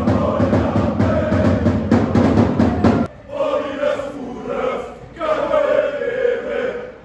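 A large crowd of male football supporters chanting in unison over steady drumbeats. About three seconds in, it cuts to the crowd chanting short phrases with brief pauses between them, without the drums.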